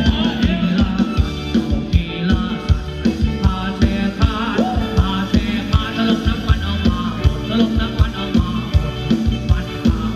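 Live Thai ramwong dance band playing an upbeat song through a PA, with a singer over a steady drum-kit beat and electric guitar.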